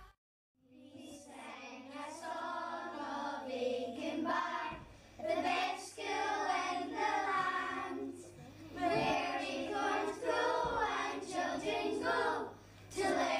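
A group of children singing together in phrases with short breaks between them, starting after a brief moment of silence.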